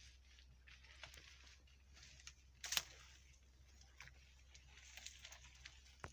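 Near silence: a faint steady low hum with scattered light clicks, one sharper click about two and a half seconds in.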